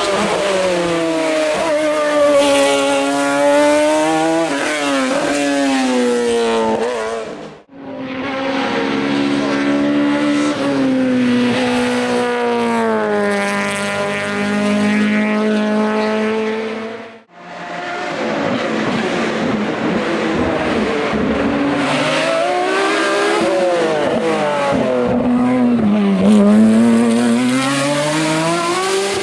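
Race car engines at full throttle on a hillclimb, pitch climbing under acceleration and dropping at each gear change. Three separate runs follow one another, each broken off abruptly.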